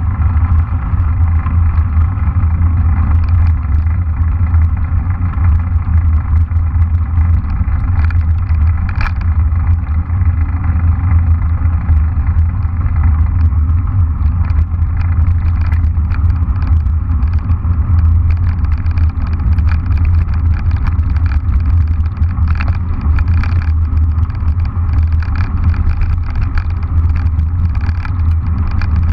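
Steady low rumble of wind buffeting the microphone of a camera on a moving mountain bike, with scattered knocks and rattles from the bike jolting over a bumpy dirt track, more frequent in the second half.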